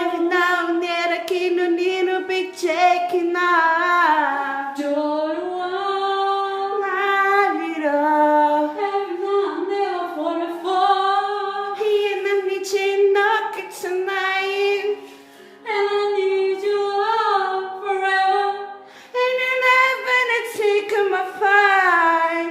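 A woman singing unaccompanied in a high voice, holding long wavering notes that slide between pitches, with brief breaths between phrases.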